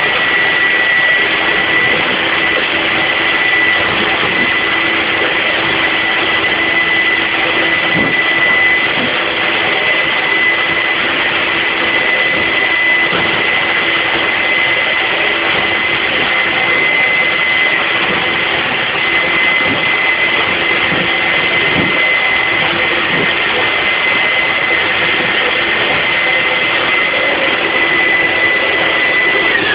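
Vacuum cleaner blower fan running at a steady high whine, blowing the low-pressure air that drives the float engine. A few faint knocks sound underneath.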